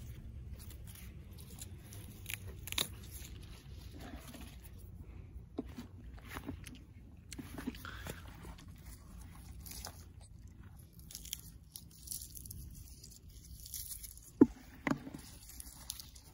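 Handling noise from a phone filming close among garden plants: scattered crunchy clicks and rustles over a low rumble, with two sharper clicks near the end.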